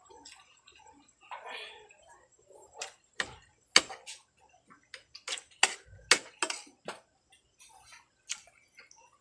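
Eating at close range: a string of irregular sharp clicks and taps, densest in the middle, with a short soft rustle near the start.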